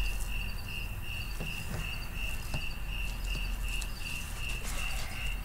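A cricket chirping steadily, about three even chirps a second, with a few faint soft rubs from a gloved hand spreading seasoning on raw brisket.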